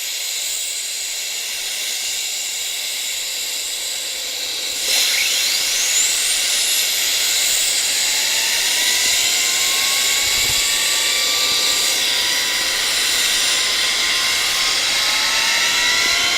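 B-52 bomber jet engines running with a loud high-pitched whine and hiss, with several rising whines in the second half as the engines spool up. The sound steps up suddenly in loudness about five seconds in.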